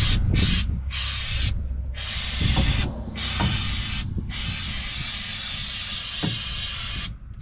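Aerosol can of spray-on rubber sealant hissing in bursts: three quick short sprays, then longer ones, the longest about three seconds before it stops near the end.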